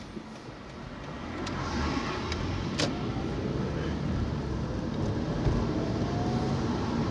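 Car driving, engine and road noise heard from inside the cabin, growing louder about a second in as it gets moving. A single sharp click near the middle, and faint rising whines as it speeds up.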